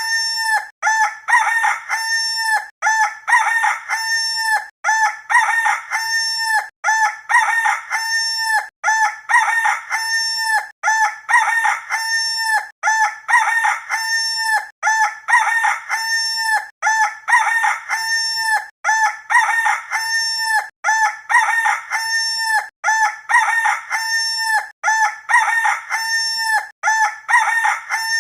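Rooster crowing, the same crow repeated over and over about every two seconds like a loop.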